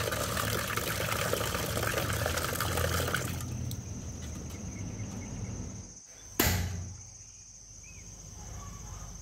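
Tap water splashing into a large aluminium pot, stopping about three seconds in. Later a single sharp click, then a quiet steady hiss from the gas stove burner heating the pot.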